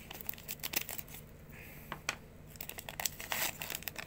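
Plastic cello wrapper of a basketball card pack crinkling and crackling as the torn-open pack is handled, in quick irregular crackles that get busier near the end.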